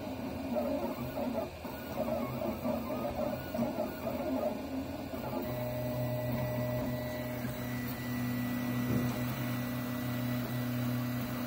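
Home-built FDM 3D printer printing: its stepper motors whine in tones that shift pitch with each move of the print head, settling into a steadier hum about five seconds in.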